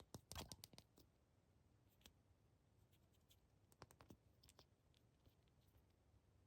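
Faint scattered clicks and light taps of small objects being handled during an unboxing, a quick cluster in the first second and a few more about four seconds in.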